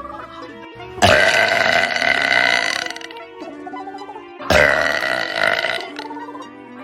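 A girl burping twice, two long drawn-out burps of about two seconds each, the first about a second in and the second about halfway through, over background music.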